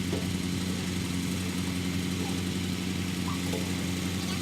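An engine running steadily at an even speed, a constant low hum that does not change pitch.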